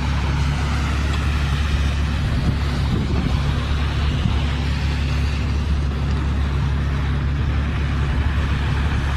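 A steady low rumble with an even hiss above it, unchanging throughout.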